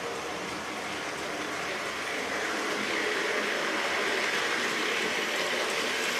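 Hornby model locomotive 5972 Olton Hall running on the track with its train of coaches: a steady whirring rumble of motor and wheels that grows louder about two seconds in as the train comes close round the curve.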